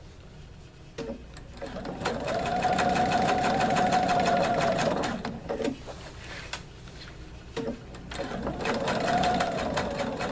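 Electric domestic sewing machine stitching slowly in two short runs, about two seconds in and again about eight seconds in. Each run has a fast, even tapping of needle strokes over a motor whine that rises as it speeds up and falls as it slows, with a few clicks in the pause between runs.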